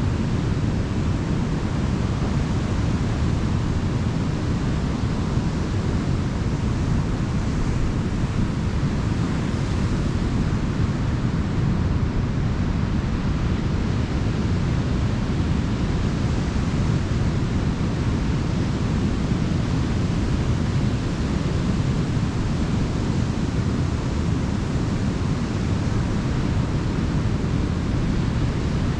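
Ocean surf washing on a beach, a steady rushing noise with no single wave standing out.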